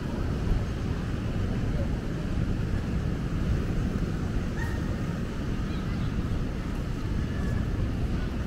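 Street ambience of a city at night: a steady low rumble of traffic.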